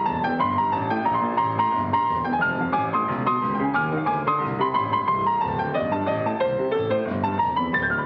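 Solo grand piano played fast: a quick, unbroken stream of notes in rapid running figures.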